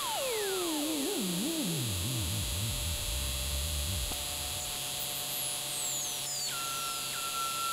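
Analogue synthesizer with a pin-matrix patch board and joystick: an electronic tone glides down from very high to a low, wobbling rumble. Steady held tones then come in, with another high falling sweep about five seconds in, all over a constant hiss.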